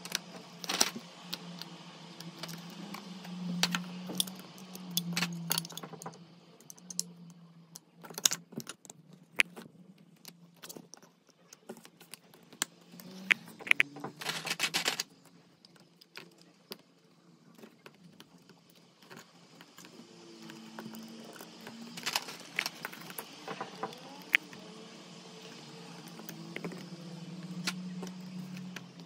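Handling an Airbus A320neo desktop model and its plastic stand: scattered clicks, taps and knocks of hard plastic parts being fitted and moved, with a short burst of crackling plastic about halfway through. A low steady hum sits underneath.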